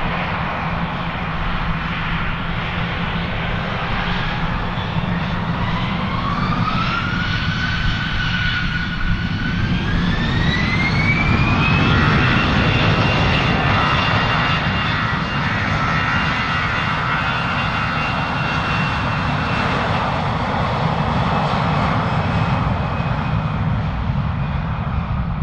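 Airbus A321-211's CFM56-5B turbofan engines spooling up for takeoff. A rising whine climbs in two steps with a short pause part-way, then holds steady at takeoff thrust over a heavy low rumble, and the whine thins near the end.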